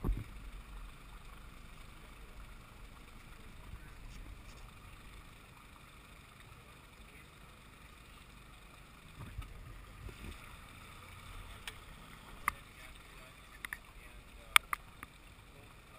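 Low wind rumble and water noise on a camera mounted on an aluminium rescue boat, with no engine running. A thump as the camera is jostled at the start, and several sharp taps in the last few seconds, one much louder than the rest.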